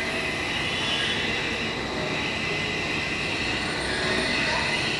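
Plano milling machine running, its vertical spindle's cutter milling a metal workpiece clamped on the table: a steady, even machining noise with no breaks.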